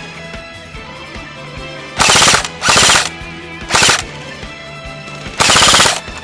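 Airsoft electric guns firing four short full-auto bursts of rapid, closely spaced shots, the last one the longest, over background music.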